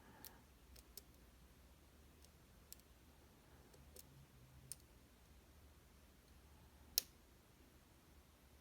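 A handful of scattered, faint clicks from a lock pick and tension wrench working the top pins of an M&C Condor lock cylinder, the sharpest one about seven seconds in, over near silence.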